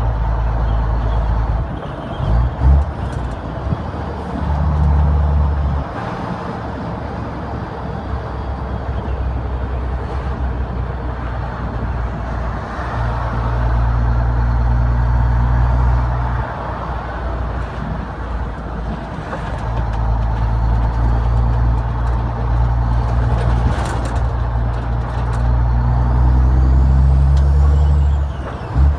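Renault Magnum's Mack E7 E-Tech diesel engine pulling under load, its note dropping away briefly several times as the manual ZF 16S gearbox is shifted. Near the end a high turbo whistle rises and falls, with a few short sharp sounds in between.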